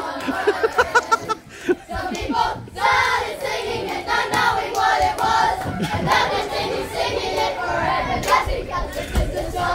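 A quick run of sharp taps, about six a second, in the first second and a half, then a group of children and adults chattering.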